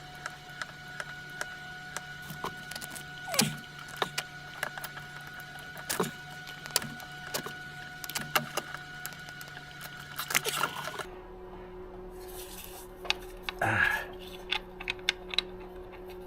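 Scattered light metallic clicks and clinks of hand tools working at a transmission plug, over a steady hum. The background changes abruptly about eleven seconds in.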